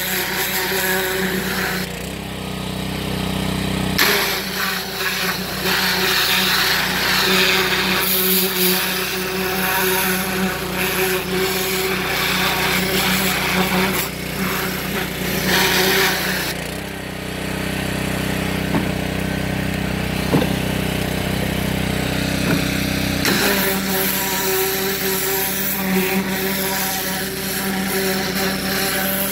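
Yamaha-powered Powerstroke gas pressure washer running steadily, its engine note shifting as the spray gun is triggered and released. The hiss of the high-pressure water jet comes in about four seconds in, drops out for several seconds past the middle, and returns near the end.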